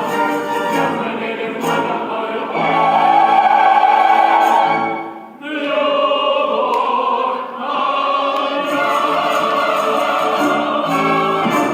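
Music: voices singing together in long held notes over orchestral accompaniment, with a brief dip about five seconds in.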